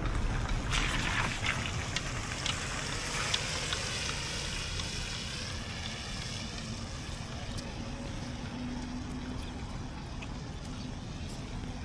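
Traffic on a wet street: a vehicle passes with its tyres hissing on the wet road, fading about halfway through, and a steady low engine hum is left. Wind rumbles on the microphone throughout.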